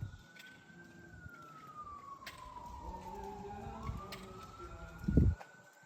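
Emergency vehicle siren in a slow wail: one tone rising, falling slowly for nearly three seconds, then rising again. A low thump comes about five seconds in.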